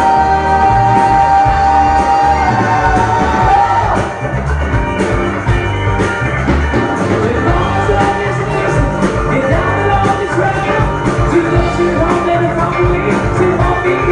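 Live rock band with a lead singer singing into a microphone over bass, drums and guitar, loud and steady, with a long held vocal note in the first couple of seconds.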